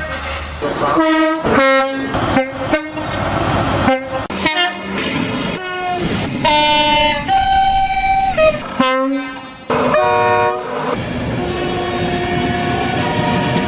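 Train horns giving a rapid string of short blasts, including a longer two-tone blast that steps from a higher note to a lower one. This is followed by a steady droning tone over rail rumble as a train runs by.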